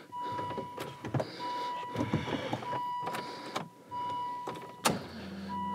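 Aston Martin V8 Vantage's warning chime beeping over and over, one short beep roughly every second and a quarter, mixed with clicks of the car's controls being worked, one louder click near the end. A low hum starts just before the end.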